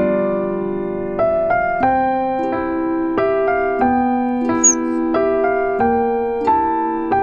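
Background music: a gentle electric piano melody, a new note or chord struck every half second or so. About halfway through there is a brief high chirp.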